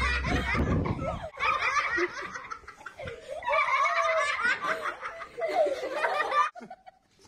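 A group of children and a man laughing together in repeated bursts, cutting off suddenly about six and a half seconds in.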